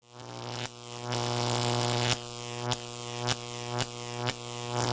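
Neon-sign style electrical buzz sound effect: a steady buzzing hum that fades in, broken by sharp clicks about every half second, the buzz dropping and swelling again after each click as though flickering.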